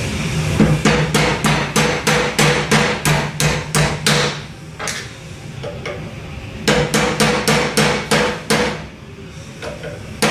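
Ball-peen hammer striking a steel punch to drive a shear pin into a pulling tool held in a vise: quick metal-on-metal taps, about four a second, in two runs with a pause of about two seconds between them.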